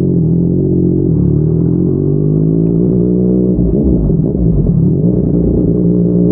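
Yamaha MT-09's inline three-cylinder engine running through a Yoshimura R55 slip-on exhaust, heard while riding at a steady pace. The revs dip briefly about midway and then pick up again.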